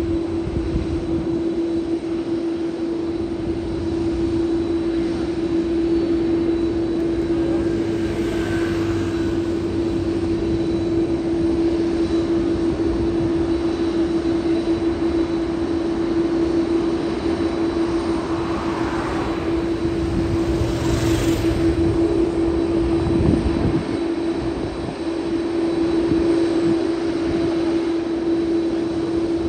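Jet airliner engine noise: a steady drone with a constant low hum, and two brief swells of hiss.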